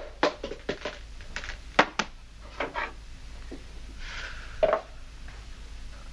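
Bottles and containers being handled on a shelf: a run of light knocks and taps as they are picked up and set down, with a louder knock after about four and a half seconds.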